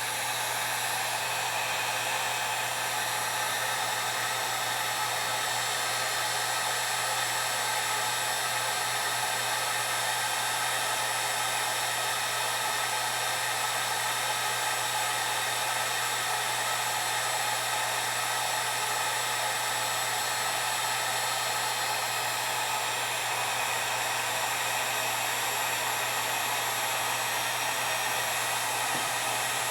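Electric heat gun blowing steadily with a constant hum, heating a solder-seal heat-shrink butt connector to melt its solder ring and shrink the tubing.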